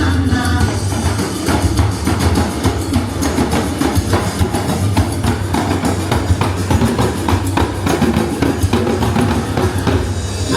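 Samba music carried by drums and percussion: a fast, dense beat over a steady deep bass, without singing.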